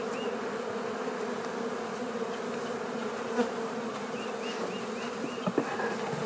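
Steady buzzing of a large mass of honey bees flying around open hives, stirred up as bees are shaken off frames into a new box during a colony split. A faint high chirp repeats about three times a second for a second or so partway through, and a few light knocks come near the end.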